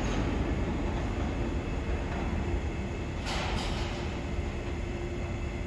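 New York City subway train running through the station: a steady low rumble with a steady hum that eases slightly, and two short sharp clicks a little past three seconds in.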